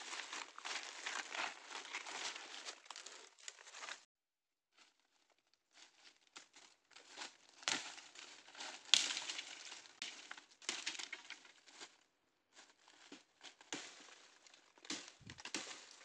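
Dry bamboo leaves and twigs rustling and crackling underfoot and under hand as someone crouches and works in thick leaf litter, with a few louder snaps near the middle. The sound cuts out to silence twice, briefly.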